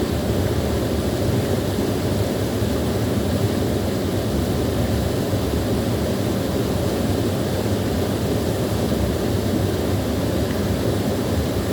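Small waterfall pouring and splashing steadily, a constant low rushing noise.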